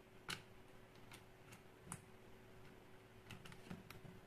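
Faint, irregular clicks and ticks of a small screwdriver working a screw on a plastic LED headlamp, coming more often near the end, over a faint steady hum.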